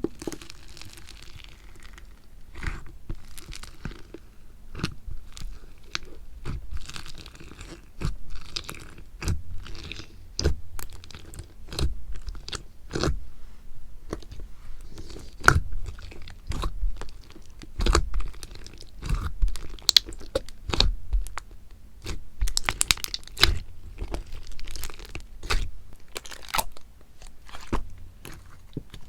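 Slime being squeezed, pressed and stretched by hand, giving irregular sharp clicks and pops with a soft crackle between them.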